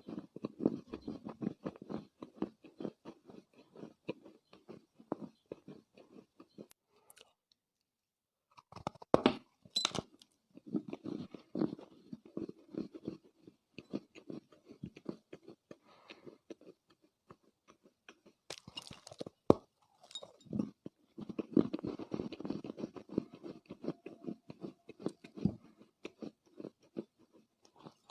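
Soft lumps of Chinese loess clay being chewed: dense, rapid crunching in clusters, with a few sharper, louder crunches, including two about a third and two thirds of the way through, and a short pause about a quarter of the way in.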